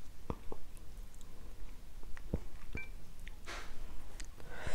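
Close-miked chewing of stir-fried noodles with seafood, with scattered wet mouth clicks and smacks.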